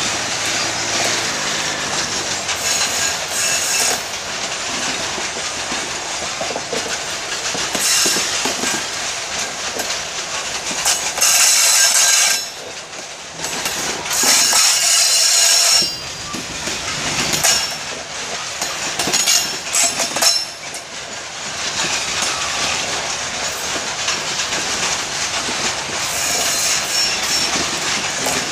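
A long freight train of boxcars rolls past close by, its wheels rumbling and clattering along the rails. High-pitched wheel squeal rises and fades several times.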